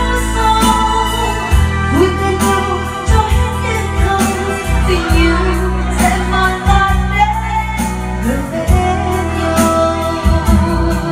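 A woman singing a Vietnamese song into a handheld microphone over backing music with a bass line and a regular beat, played through loudspeakers.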